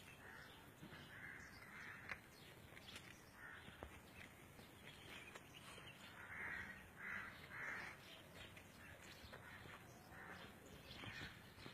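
Near silence with faint bird calls: short, rough calls in small groups, the clearest ones about six to eight seconds in.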